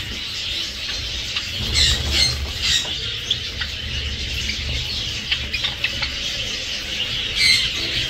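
A flock of Java sparrows chirping and calling without pause, with wing flutters as birds fly between perches. A few louder calls stand out about two seconds in and again near the end.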